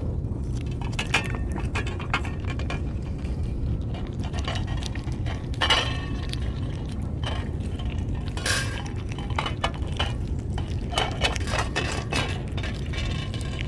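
Irregular light clinks and taps of cat-food cans and feeding dishes being handled, over a steady low rumble.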